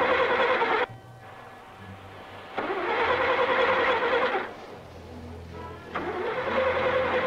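Car starter motor cranking in three separate tries of a couple of seconds each, a steady whine with a pause between tries, the engine not plainly catching.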